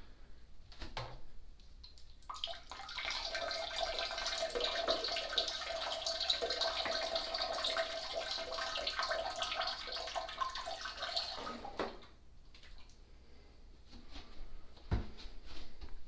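A person urinating into the water of a toilet bowl: a steady splashing stream that starts about two seconds in and stops abruptly about ten seconds later. A single knock follows near the end.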